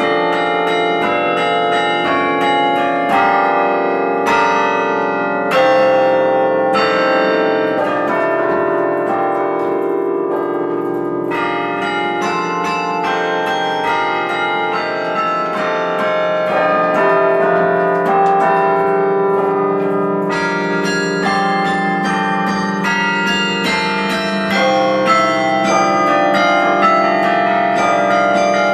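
Carillon playing a tune: bronze tower bells struck from the pedal and baton keyboard in quick succession, each note ringing on and overlapping the next.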